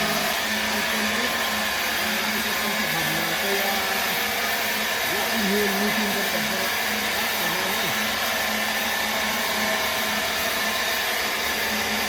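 A machine running steadily, a continuous even whirring noise with no breaks or changes.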